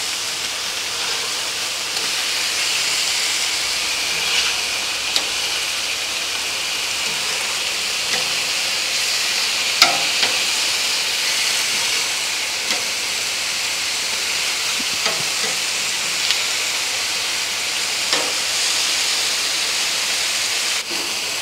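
Carne asada and marinated chicken frying on a hot Blackstone steel flat-top griddle: a steady, even sizzle, with a few light clicks and scrapes of metal tongs against the steel as the meat is turned.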